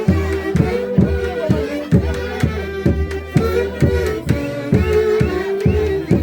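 An Andean folk orchestra plays a Santiago tune: a steady drum beat about two strokes a second under a sustained melody of long held notes.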